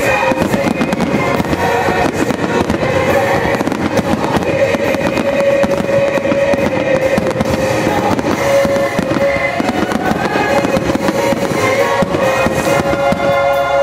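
A rapid, continuous barrage of aerial firework shells bursting. Over it runs a musical soundtrack with long held notes.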